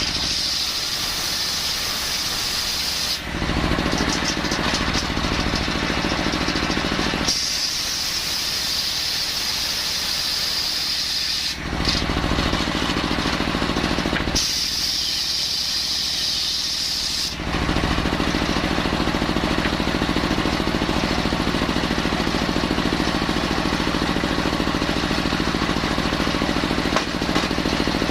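Engine-driven circular saw running while it cuts coconut timber. The sound switches several times between a high, hissing whine and a heavier, lower running sound, settling into the lower sound for the last ten seconds or so.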